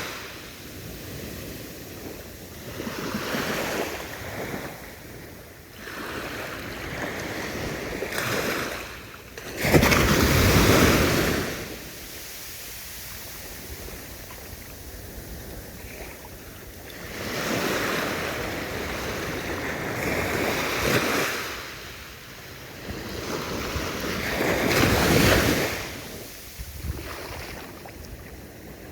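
Ocean waves breaking and washing on the shore, surging and falling back every few seconds, with the biggest breaks about ten seconds in and near the end. A little wind noise is on the microphone.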